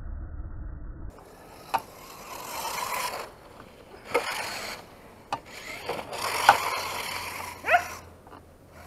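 Traxxas Rally VXL RC car's brushless motor and drivetrain whirring in swells as the car accelerates and slides on ice, its HPI WR8 off-road tyres scrabbling. Several sharp clicks are heard, with a quick rising-and-falling whine near the end.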